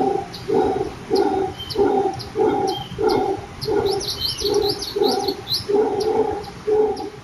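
An animal call repeated in a steady rhythm, about one and a half calls a second, with a brief flurry of high chirps about four seconds in.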